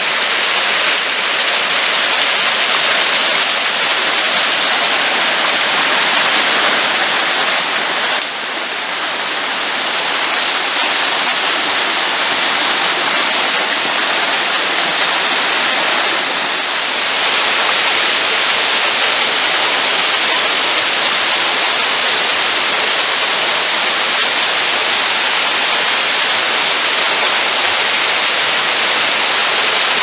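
Small waterfall spilling over mossy rock into a pool: a steady rush of falling water, dipping briefly about eight seconds in.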